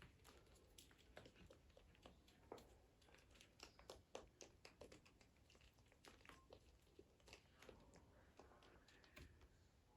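Near silence with faint, scattered clicks and soft crackles: handling noise of a DIY slime mix being shaken and stirred in its container.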